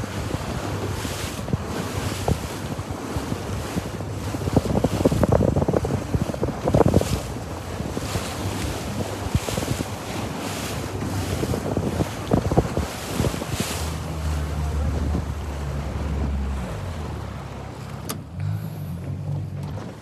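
Outboard-powered boat under way at speed: a steady low engine hum, with water rushing in the wake and wind gusting on the microphone.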